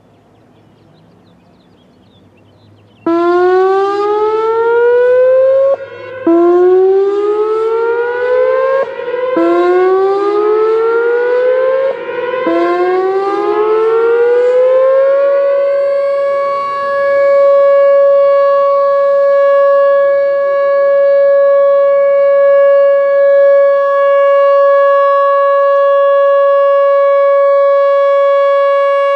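Whelen WPS-4004 electronic speaker-array warning siren sounding its test tone: about three seconds in it starts with four rising sweeps about three seconds apart, then settles into a loud steady tone, the Alert signal that follows its voice test message.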